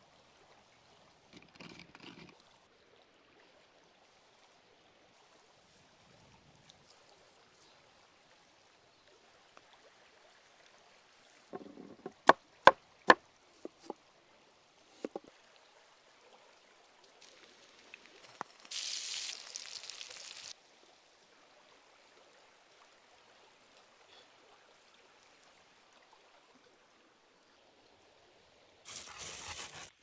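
Faint flow of a shallow stream, with four sharp knocks in about a second near the middle and a hiss lasting about two seconds a little later.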